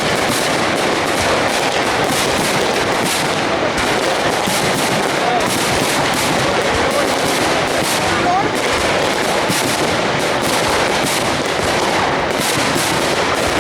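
Aerial fireworks shells bursting in a continuous rapid barrage, dense overlapping bangs and crackle with no pause.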